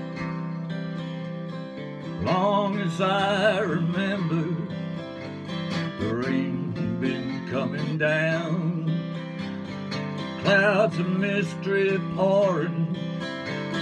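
Round-backed acoustic guitar strummed steadily. From about two seconds in, a wordless vocal melody wavers over it in short phrases.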